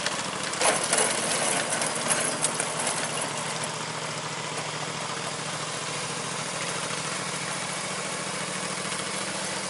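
Small engine of a rideable 1.5-scale model locomotive running steadily as it backs its coupled cars up, with a few sharp clanks in the first few seconds.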